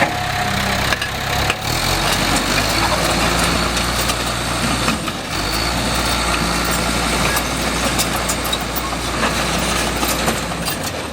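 John Deere 450G crawler dozer's diesel engine running steadily.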